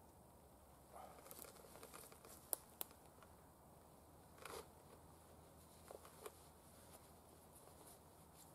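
Faint rustling of a rucksack and its shoulder straps being adjusted, with two sharp clicks about two and a half seconds in and a couple of smaller clicks later on.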